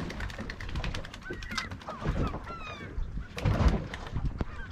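Seabirds calling, several short honking calls about one and a half to three seconds in, over low wind and water noise, with a low thud about three and a half seconds in.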